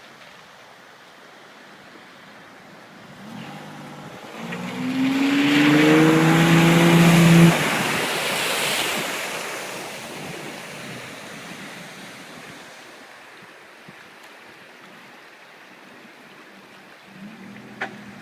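A vehicle drives past through floodwater. Its engine note rises as a rush of spraying water builds, peaks a few seconds in, then fades away.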